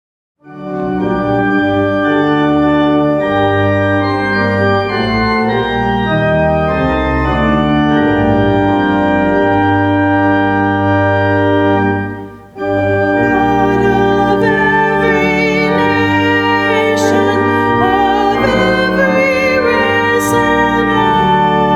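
Organ playing sustained chords. It starts about half a second in, pauses briefly about halfway through, then carries on.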